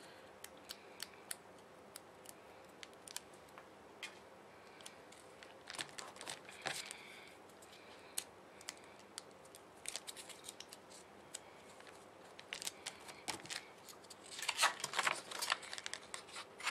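Scattered small clicks and taps of paper stickers being peeled off their backing and pressed onto planner pages. Near the end comes a busier run of crisp paper rustling and scissor clicks.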